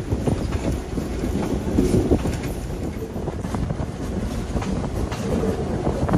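Inside the cab of a moving CF7 diesel locomotive: the engine runs under a steady low rumble while the wheels click and knock irregularly over the rails.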